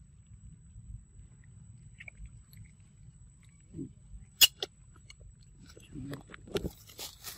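Macaque biting and chewing a mango: quiet chewing, one sharp click about four seconds in, and a scatter of smaller clicks and crackles near the end.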